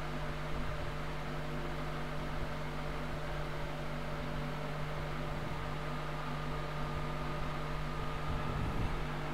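Steady background hum with an even hiss and several constant low tones, as from a fan or motor running.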